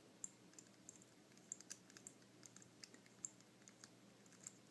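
Faint, irregular clicks of an Abus 155/40 combination padlock's number dial being turned notch by notch while the shackle is held under tension: the lock is being decoded by feeling for the right digit.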